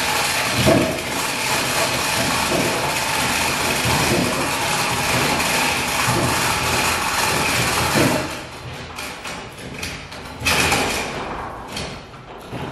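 Handheld power tool running steadily against the top edge of a boat hull, with a high whine through the noise. It stops about eight seconds in, with a few knocks after, and runs again briefly near eleven seconds.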